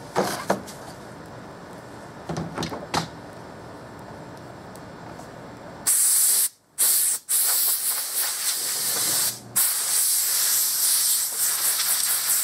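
Can of expanding spray foam hissing as foam is dispensed, starting about six seconds in and broken twice by short pauses. Before that there are two brief clusters of knocks.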